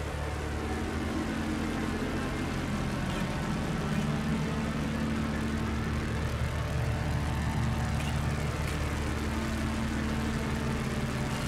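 A sustained, low electronic drone of several held notes, with a slowly sweeping, phased shimmer above it.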